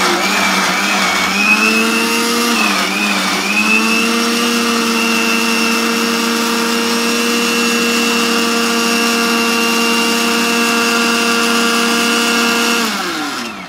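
Electric countertop blender running, churning grated laundry bar soap and water into a foamy liquid. Its motor pitch dips briefly about three seconds in, then holds steady, and near the end it falls in pitch as the blender is switched off and spins down.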